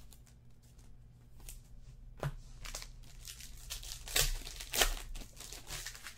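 Hands handling trading cards and a card-pack wrapper: rustling and crinkling, with sharper crackles about two, four and five seconds in.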